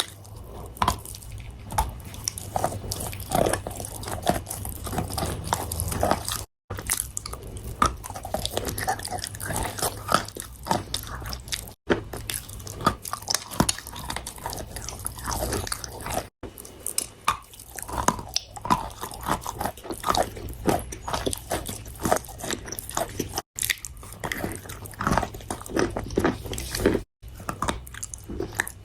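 Close-up chewing and biting of crunchy food: a dense run of irregular crisp crunches and mouth sounds over a steady low hum, cut off for a split second several times.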